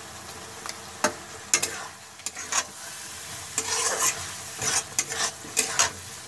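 Metal spatula stirring and scraping through thick potato-and-pea curry in a kadhai to mix in the salt, with irregular scrapes and knocks starting about a second in, over a steady sizzle of the cooking gravy.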